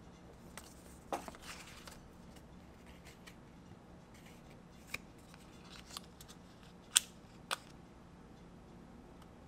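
Paper and thin card being handled: the fold-out iPhone quick-start leaflet rustles about a second in, then a few sharp clicks and snaps as the metal SIM-eject pin is worked out of its cardboard holder, the loudest about seven seconds in.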